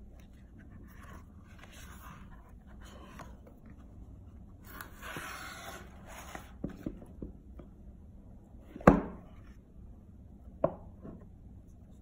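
Cardboard watch packaging handled on a wooden table: paper rubbing and sliding, with a longer scraping slide about five seconds in as the box slides out of its sleeve. Then a sharp knock of the box on the table about nine seconds in, and a smaller one about a second and a half later.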